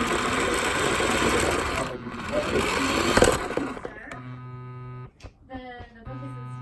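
Toy car's small electric motor whirring as it drives, cutting off about four seconds in. A simple melody then starts.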